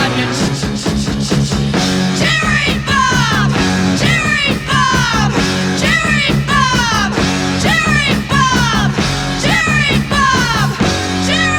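Rock music played from a vinyl record: a passage of repeated falling, bending melodic phrases over a steady bass, which changes to long held notes near the end.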